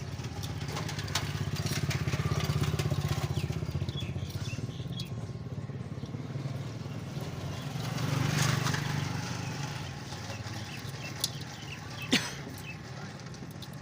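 A small motorcycle engine running with a steady beat, swelling louder twice, with a few sharp metallic clicks near the end.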